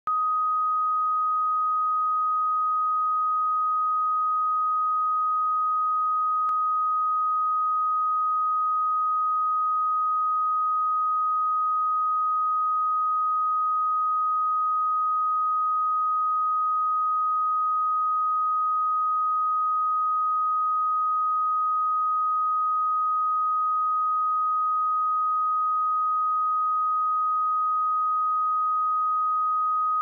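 Pure 1253 Hz sine-wave test tone: a single steady note that holds the same pitch and level throughout.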